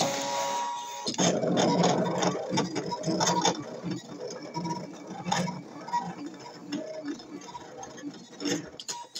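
Brother ScanNCut electronic cutting machine running: a steady motor whine in about the first second, then its stepper motors whirring and ticking in short, uneven runs as the blade carriage moves and cuts the paper on the mat.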